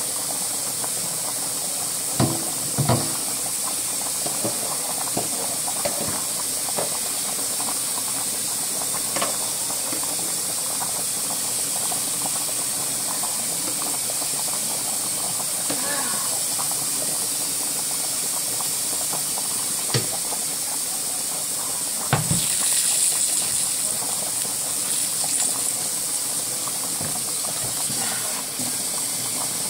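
Steady steam hiss from a pot of pasta water at a rolling boil. A few knocks of a nonstick skillet being lifted off and set back on a glass-top stove cut through it; the loudest comes about 22 seconds in and is followed by a brief louder hiss.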